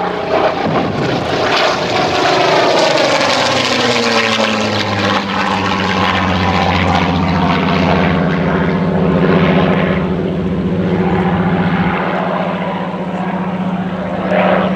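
Supermarine Spitfire Mk XIX's Rolls-Royce Griffon V12 engine and propeller flying a display pass. The engine note falls in pitch over the first few seconds as the aircraft goes by, then holds a steady drone.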